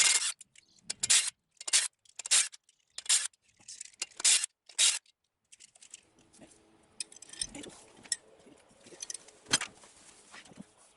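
A run of about eight short scraping strokes, roughly two a second, then quieter rubbing and handling noises with a sharp click near the end.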